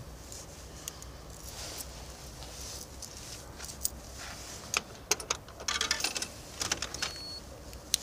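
Loose coins clinking and jangling in a hand and being fed one by one into a coffee vending machine's coin slot. The clicks come in scattered taps from about halfway through, with a quick rattling run of them a little later.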